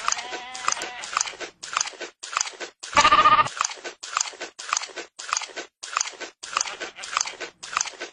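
Rhythmic crunching, about two a second, with one loud goat bleat about three seconds in.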